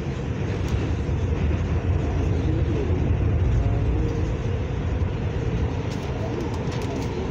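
New York City subway 4 train running, heard from inside the car: a steady low rumble of the train on the rails, with a few faint sharp clicks about six seconds in.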